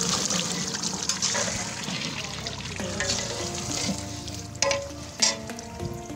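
Meat sizzling and frying in a large cooking pot over a wood fire as it is stirred with a long paddle. Near the end there are two sharp knocks.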